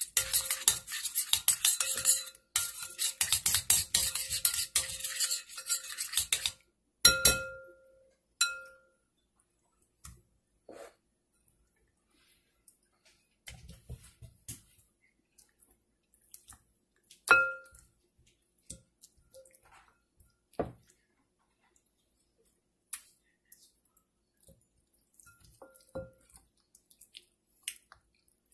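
Metal spoon stirring and scraping a thick spice paste around a glass mixing bowl, the glass ringing faintly under the strokes. The stirring stops about six seconds in with two sharp clinks of spoon on glass, followed by quieter handling: scattered soft knocks and an occasional ringing clink against the bowl as raw chicken drumsticks are put into the paste.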